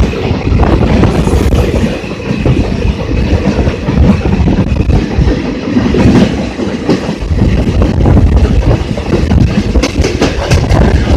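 Rajdhani Express coaches rushing past on the adjacent track, heard from another moving train: a loud, steady rumble with wheels clattering over rail joints and a faint high-pitched wheel screech. A quick run of clacks comes near the end.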